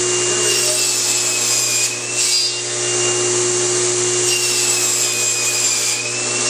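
Table saw with a Micro-Kerf40 thin-kerf blade running and ripping thin wooden strips. The steady motor hum and high blade whine sag briefly twice, about two seconds in and near the end, as the blade takes the cut.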